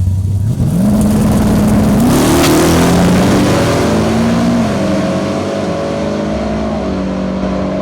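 Drag racing vehicle's engine accelerating hard: the note jumps up about a second in, climbs higher near two seconds, then drops back and holds steady as it runs on.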